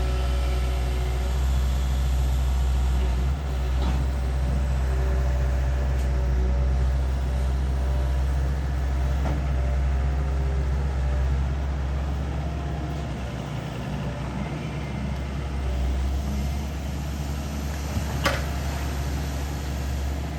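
Long-reach IHI excavator's diesel engine running steadily while it digs, easing off for a few seconds past the middle. A sharp knock near the end.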